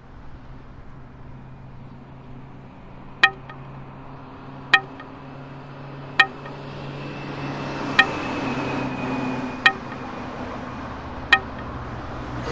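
Intro of a background music track: a slowly swelling wash of sound over a low steady hum, with six bright, pitched clinks about a second and a half apart.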